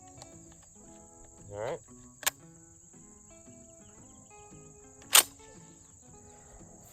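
Background music with a steady high-pitched hum. There is a rising swoop about one and a half seconds in, a short click just after it, and a single sharp crack about five seconds in, the loudest sound.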